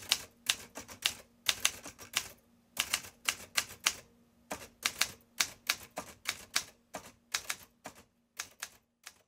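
A run of sharp, uneven clicks, roughly three a second with a couple of short pauses, over a faint steady hum.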